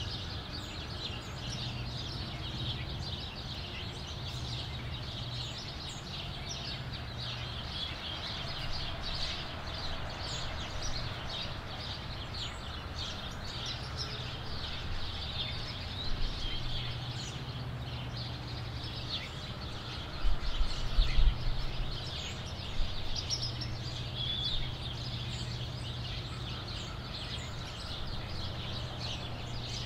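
House sparrows chirping continuously, many short repeated chirps, over a steady low hum. A few loud low thumps come about twenty seconds in.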